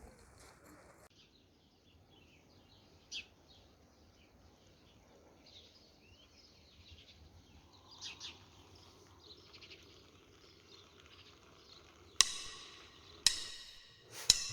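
Faint bird chirping in the background, then three sharp knocks about a second apart near the end.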